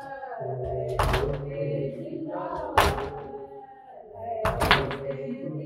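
Matam: mourners striking their chests together in loud slaps about every two seconds, the last a quick double beat, over voices chanting a nauha lament.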